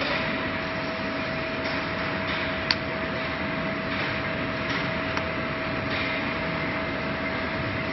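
Solder paste syringe filling machine running: a steady mechanical noise with a constant mid-pitched whine, a sharp click a little under three seconds in and a few fainter clicks.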